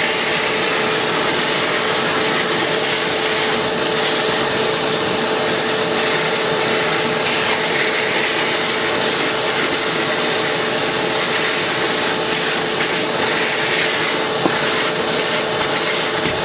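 Shop vac running steadily, a constant motor whine over rushing air, set up to suck dirty water through a hose into a barrel.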